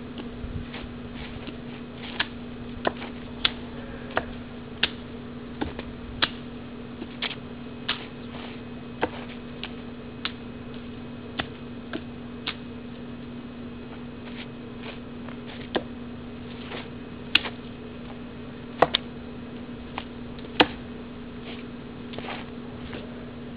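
Hands and forearms striking the arms of a kung fu wooden dummy (mook jong), as a string of sharp, irregular knocks about one or two a second, with a few louder hits in the last third. A steady low hum runs underneath.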